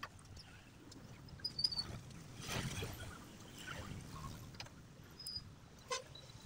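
Faint rustling of cut cloth strips being handled and shifted, with a few light clicks and a louder stretch of rustling about two and a half seconds in.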